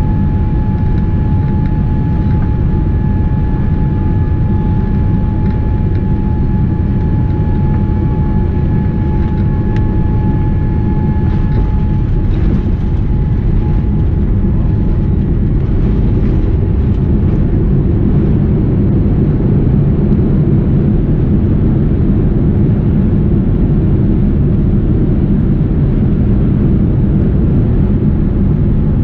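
Cabin noise of a Boeing 787-10 touching down and rolling out: a loud, steady rush of engines and airflow with a thin high whine that fades away about twelve seconds in. Once the aircraft is on the runway with spoilers up, the rumble grows a little louder as it decelerates.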